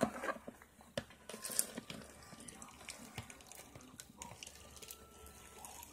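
Slime being squeezed and pulled by hand, making a run of small, irregular sticky clicks and wet squelches.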